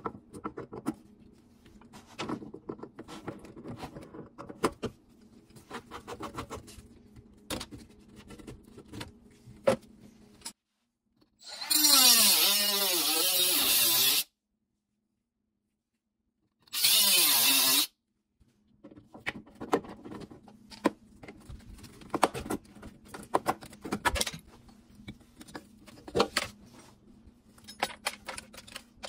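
Scattered metal clicks and knocks of a wrench and hand work on a corroded sink basket strainer. Then two loud bursts from a cordless power tool working on the strainer, one of about two and a half seconds and a shorter one of about a second, its pitch sweeping up and down. More clicks and knocks follow as the old parts come off.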